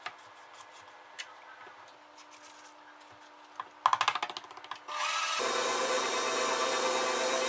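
A short clatter of rapid knocks, then a KitchenAid Professional 620 stand mixer switched on about five seconds in, its motor running with a steady whine as the beater works the cookie dough.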